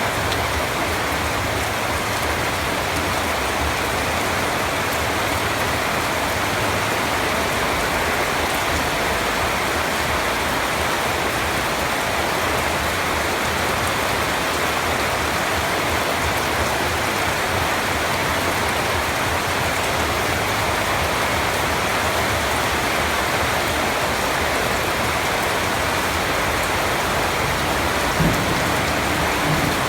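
Steady rain falling, an even, unbroken hiss of drops on surfaces. A brief low thump comes near the end.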